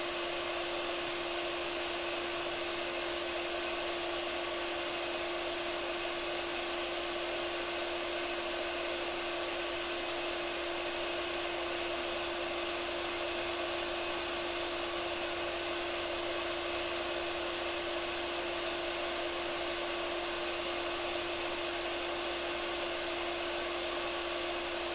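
iTeraCare terahertz blower's small fan running steadily: an even whir with a constant mid-pitched hum and a faint high whine.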